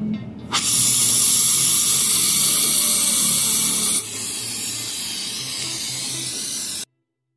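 Brazing torch flame hissing loudly as it heats copper refrigerant pipe joints to unbraze the service valves. The hiss starts about half a second in, drops to a lower level about four seconds in, and stops abruptly near the end.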